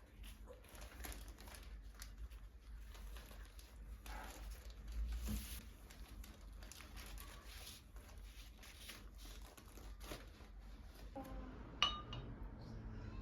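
Faint rustling and crinkling of things being handled, with scattered small taps and one sharp, ringing clink near the end.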